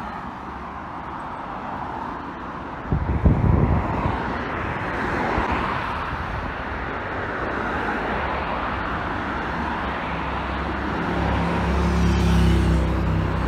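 Street traffic: cars passing on the road, picked up by a handheld phone's microphone with wind and handling rumble, including a short heavy rumble about three seconds in. A vehicle engine's low drone builds near the end.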